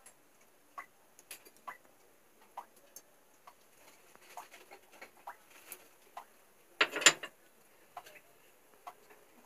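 Faint, scattered ticks and small pops as ghee is poured into an iron kadhai on a gas burner and heats. A brief louder clatter comes about seven seconds in.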